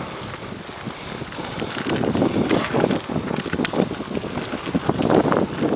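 Wind buffeting the microphone of a camera riding on a moving mountain bike, with rapid knocks and rattles as the bike rolls over a bumpy forest dirt trail.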